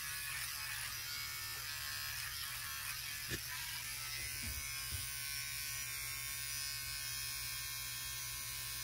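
Electric beard clippers running with a steady buzz while trimming a beard, with two or three faint knocks partway through.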